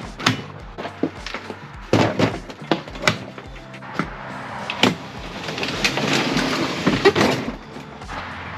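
Background music with a steady beat, over a series of sharp knocks and clatter and a stretch of rushing noise a little over halfway through.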